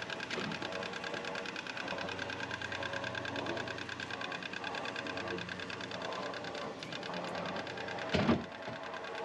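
Handheld cordless winch running steadily, its small motor and gears whirring as it pays out rope to lower a boat down a ramp. One heavy thump about eight seconds in.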